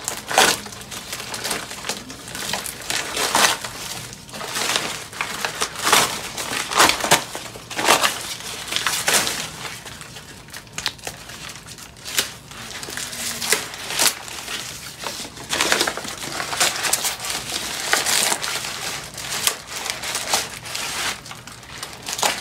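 Newspaper wrapping crinkling and rustling as it is pulled off a bundle of bamboo-stick rockets, in irregular bursts of crackle.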